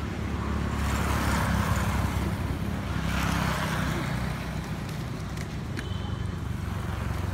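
A motor vehicle's engine runs steadily as a low hum, with louder road noise swelling twice, about a second in and again about three seconds in.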